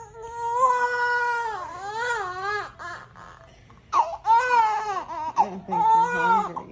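Newborn baby crying: two long, high-pitched cries, the first wavering up and down near its end, the second starting about four seconds in.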